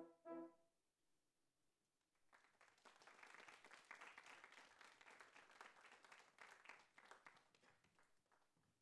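A French horn quartet sounds its last short notes. After a pause of under two seconds an audience applauds for about six seconds, the clapping thinning out near the end.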